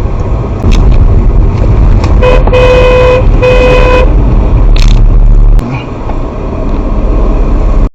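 Car horn sounding a short toot then two longer blasts, over the steady low rumble of a car being driven.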